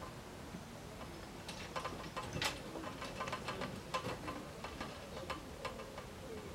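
Dinghy rigging being handled at the mast: a quick, irregular run of light clicks and ticks from fittings and lines, thickest in the middle few seconds.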